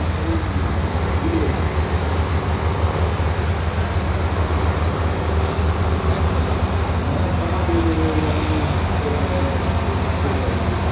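Engine of a vintage ÖSA 270 forestry machine running steadily, a constant low rumble.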